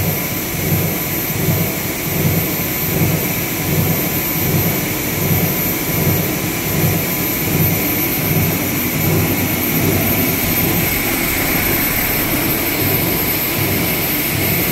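PP meltblown filter-cartridge machine running: a loud, steady rush of air from its blowers and suction fan, with a steady high whine and a low throb that pulses a little faster than once a second.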